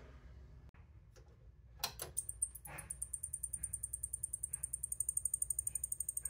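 A couple of clicks as the BarcoReality 909 CRT projector is switched on, then its switch-mode power supply gives a high-pitched chirp pulsing about ten times a second. It is rapidly cycling on and off, which the owner takes as a sign of a short still loading the supply.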